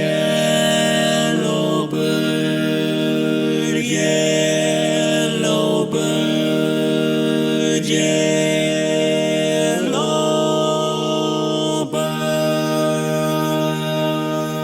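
Barbershop close-harmony chords held without words, moving to a new chord about every two seconds.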